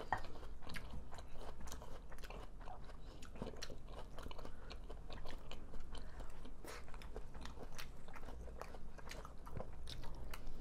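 Close-miked chewing and eating: wet mouth sounds and soft crunching of food, with many short sharp clicks scattered throughout.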